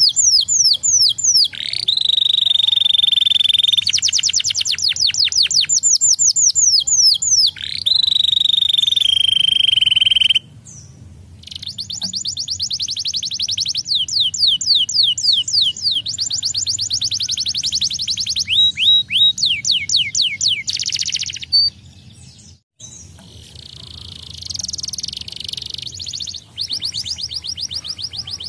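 Canary singing: rapid trills of quickly repeated downward-sweeping notes alternating with held whistled tones, with brief breaks about ten seconds in and again about two-thirds of the way through.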